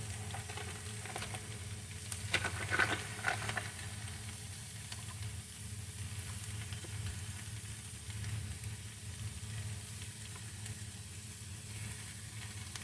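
Kale and radishes sizzling in a frying pan, with a short run of sharp taps a little over two seconds in as garlic is shaken in. A steady low hum runs underneath.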